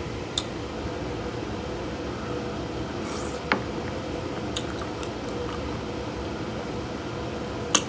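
Boiled crawfish being handled and peeled by hand, with a few sharp shell cracks and clicks, the loudest near the end, over a steady low hum.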